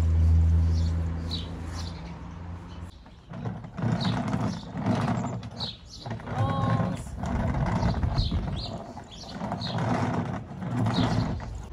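A wire tomato cage being worked into a plastic rolling planter makes repeated bursts of scraping and rattling, about one a second, from a few seconds in. Small birds chirp throughout, and a steady low engine hum fades out in the first few seconds.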